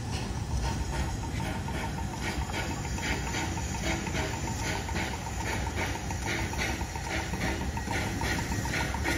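Steam locomotive pulling a train away, chuffing in a steady rhythm with hissing steam over the rumble of the train.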